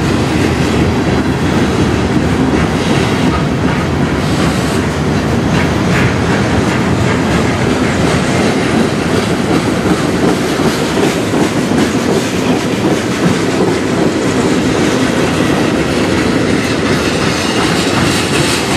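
Freight cars of a mixed manifest train rolling past close by: a loud, steady rumble of steel wheels on the rails.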